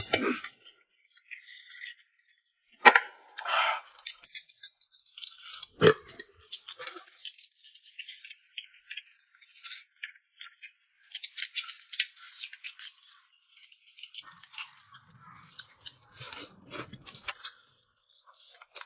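Close-up eating sounds: chewing, with chopsticks clicking against bowls, and two sharper knocks about three and six seconds in.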